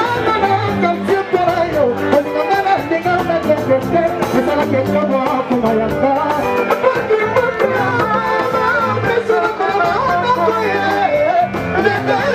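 Music with singing and a steady beat.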